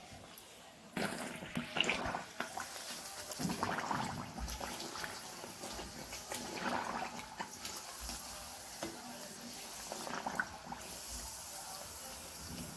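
Moong dal kachori dough disc deep-frying in hot oil, the oil sizzling and crackling. The sizzle jumps up sharply about a second in and then keeps going with scattered pops.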